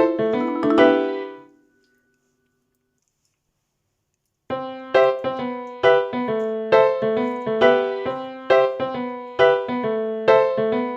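Background piano music: notes fade out in the first second and a half, the track drops to silence for a couple of seconds, then a steady, rhythmic piano pattern starts up again.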